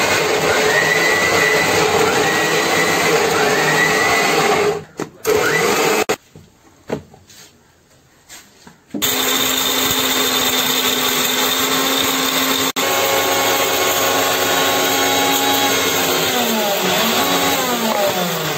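Electric mixer-grinder motor running at full speed, grinding ginger-garlic paste in its steel jar. A first run of about five seconds is followed by a couple of short pulses and a pause of a few seconds. Then comes a second run of about seven seconds, after which the motor winds down with a falling pitch.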